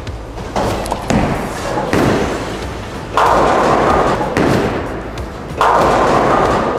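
A bowling ball thuds onto the lane and rolls, then the heavy clatter of a rack of bowling pins being knocked down, in two loud bursts, one about three seconds in and one near the end.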